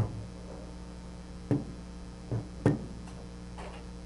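A few short knocks and clicks of metal parts being handled as a mill's Z-axis column and ball screw assembly is worked loose, heard over a steady low electrical hum.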